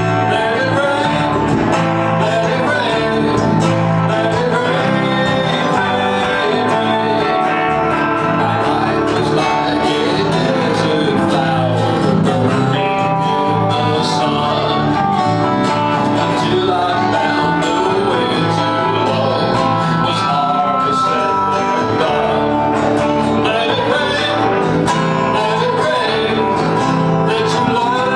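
Live country-folk band playing a song: strummed acoustic guitars with band backing and singing.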